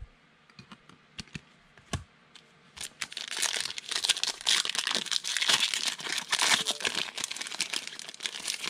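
Foil wrapper of a 2019 Panini Absolute football card pack crinkling and tearing as it is opened by hand, starting about three seconds in. Before that, a couple of light taps.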